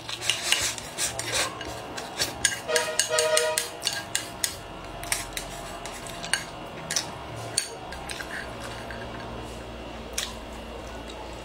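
Wooden chopsticks clicking and scraping against a ceramic bowl, with slurping at the bowl's rim. The quick taps come thickly in the first few seconds and thin out later.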